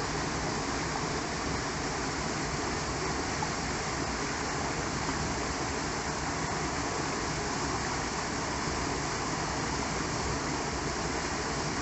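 Small waterfall cascading over rocks into a creek pool: a steady, even rush of water.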